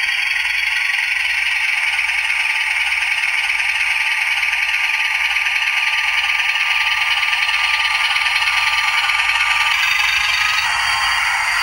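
Model locomotive sound decoder playing steady locomotive engine sounds through a tiny speaker. The sound is thin and has no bass. It changes slightly about ten seconds in.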